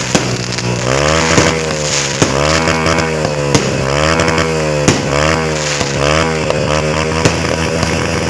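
A small engine revving up and down over and over, about once a second, with several sharp firework bangs cracking through it.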